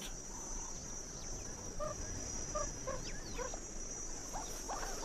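A handful of short, soft meerkat calls over a steady high-pitched drone of insects.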